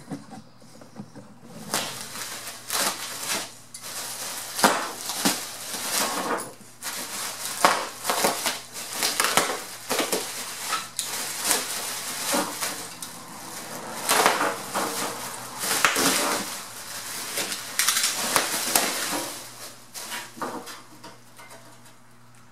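Bubble wrap and plastic wrapping crinkling and rustling in irregular bursts with sharp crackles as it is cut open with a knife and pulled off a sheet-metal rocker panel, starting about a second in and stopping shortly before the end.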